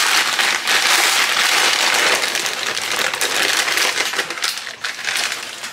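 Plastic packet of dry bihon rice noodles crinkling and crackling loudly as it is squeezed and twisted in the hands, with the brittle noodles inside crunching.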